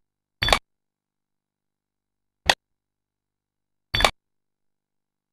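Wooden fighting staff sweeping into a large striking target: three sharp smacks, the first about half a second in, then two more about two seconds and a second and a half apart, with silence between.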